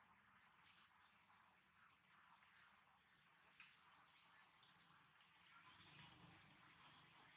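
An insect chirping in an even, high-pitched pulse, about four chirps a second, with two brief higher chirps about a second in and midway.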